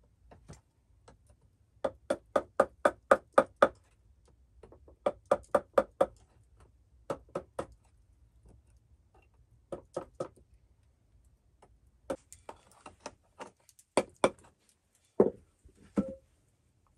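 Steel knife blade stroked quickly back and forth against a wooden rod, as when honing a blade: runs of sharp, ringing clicks at about six a second, in several bursts with pauses between. A couple of heavier, deeper knocks come near the end.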